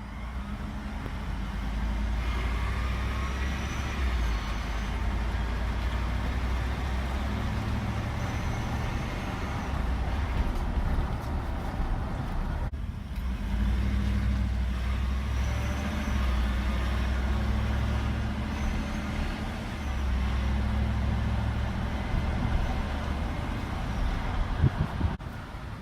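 A large vehicle engine running steadily, its low hum shifting up and down in pitch every few seconds, with two brief dropouts about halfway and near the end.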